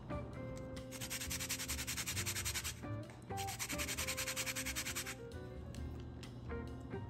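Two bursts of fast, rhythmic rasping, each just under two seconds long, over background music.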